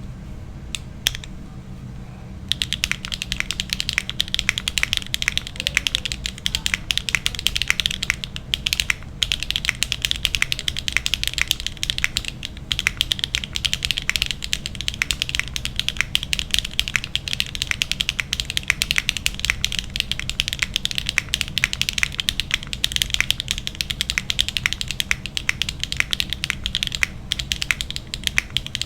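Fast typing on a Neo65 mechanical keyboard with HMX Emo switches, a carbon-fibre plate, no foams and KeyKobo Violet on Cream ABS double-shot keycaps. A couple of single keystrokes come about a second in, then an unbroken run of rapid keystrokes starts at about two and a half seconds.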